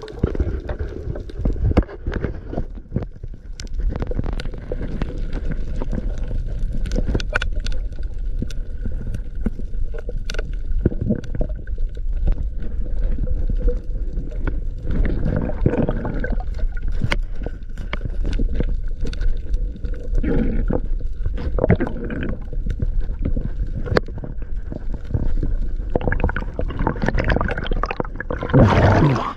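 Water sloshing and gurgling around a small boat at sea, over a steady low rumble, with scattered knocks and a louder burst of splashing near the end.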